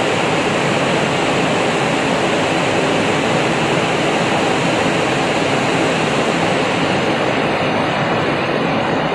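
Steady rushing of sea water and wind along a moving ship, heard from its deck. The highest hiss thins out about seven seconds in.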